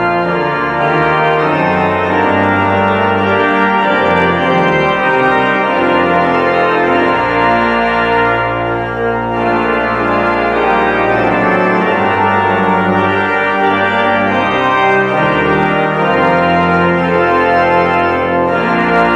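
Pipe organ playing sustained chords over a bass line that moves from note to note.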